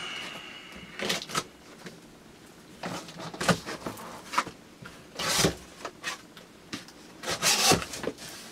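Cardboard box and its contents being handled and unpacked: a brief squeak at the start, then scattered rustles, scrapes and knocks.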